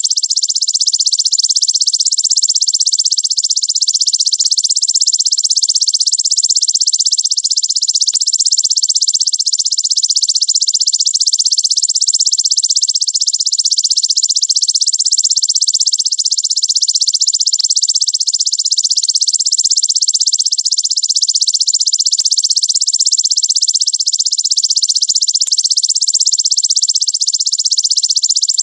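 Belalang raja ('king grasshopper') insect calling: a loud, continuous, very fast and tightly packed high-pitched buzzing trill that never pauses.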